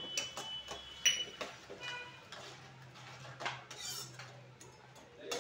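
Spoon knocking and scraping against a nonstick kadai while a tamarind gojju is stirred and jaggery is stirred in, with scattered clinks. A sharp, ringing clink about a second in is the loudest.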